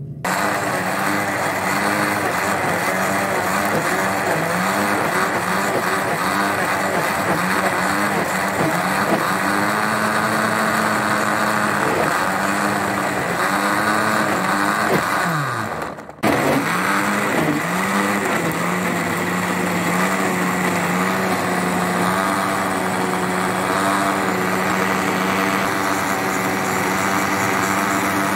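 Electric blender running, puréeing watermelon chunks with milk; the motor's pitch wavers as the chunks churn. A little past halfway it winds down and stops for a moment, then starts up again and runs steadily.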